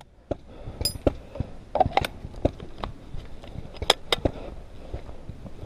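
Paintball markers firing single shots: sharp pops at irregular intervals, the loudest around two and four seconds in.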